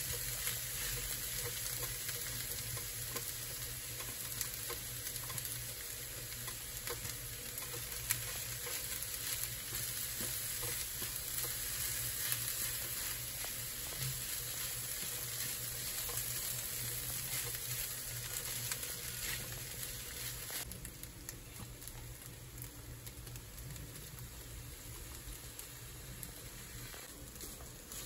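Fried rice with egg and bean sprouts sizzling in a nonstick frying pan, stirred and scraped around with a spatula. There are small clicks of the spatula against the pan. The sizzle turns quieter about two-thirds of the way through.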